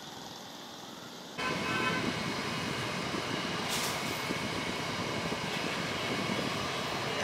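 Steady vehicle noise with several held tones in it, jumping abruptly louder about a second and a half in.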